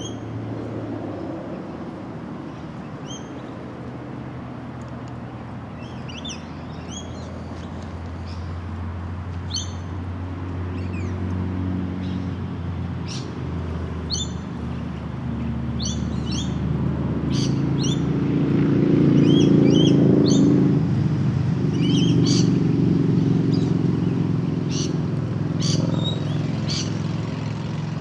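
Small birds chirping in short calls throughout, over the low, steady drone of an engine that slowly grows louder, peaks about two-thirds of the way through, then eases off again, like a vehicle passing at a distance.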